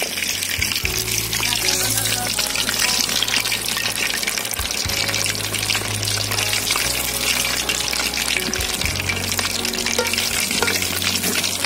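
Marinated chicken leg pieces deep-frying in hot oil, a dense, continuous crackling sizzle. Background music plays underneath.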